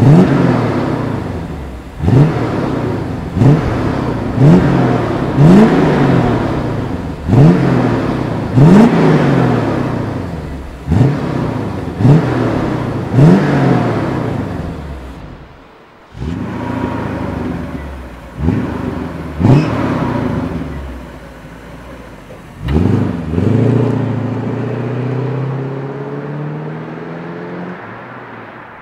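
Mercedes-Benz W126 560SEL's M117 V8 through a loud aftermarket MEC Design 'Earthquake' exhaust, blipped repeatedly while standing still: about a dozen quick revs, each rising sharply and falling back to idle. In the last few seconds the car pulls away, accelerating through the gears and fading into the distance.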